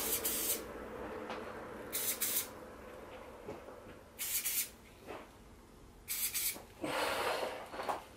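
Aerosol spray-paint can sprayed in four short hissing bursts about two seconds apart, white paint puffed against the edge of a card held on the canvas to make star rays. A longer, softer hiss follows near the end.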